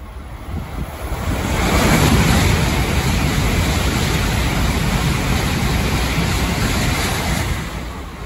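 An N700S Shinkansen passing through a station at speed without stopping: a rush of air and rolling wheel noise that builds about a second in, holds steady for about six seconds while the train sweeps by, and fades near the end.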